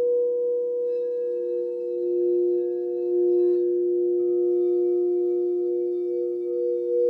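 Frosted quartz crystal singing bowls ringing together: two steady, overlapping tones that swell and hold, with higher overtones joining about a second in and again midway.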